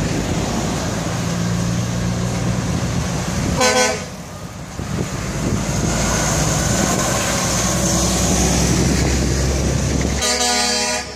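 Truck air horn sounding twice, a short blast about three and a half seconds in and a longer one near the end, over the steady low running of a heavy diesel engine and passing traffic.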